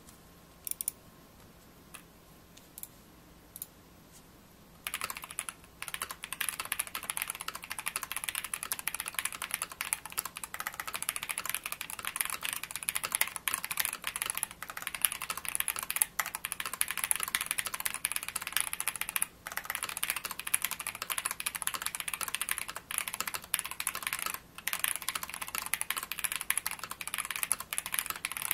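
Typing on an Ikki68 Aurora mechanical keyboard with a silicone plate dampener, no case dampeners and tuned Durock V2 screw-in stabilizers. A few single keystrokes come first, then fast, steady typing begins about five seconds in.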